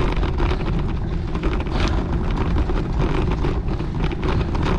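Wind buffeting the microphone of a bicycle-mounted camera, a steady low rumble with frequent small rattles and ticks from the bike on the rough road.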